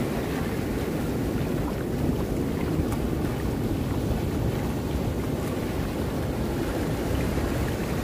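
Steady wind noise on the microphone over the wash of small surf waves breaking in the shallows.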